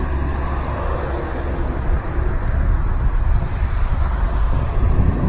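Steady wind noise rushing over a helmet-mounted camera's microphone while riding an electric bike, a constant low rumble with no clear pattern.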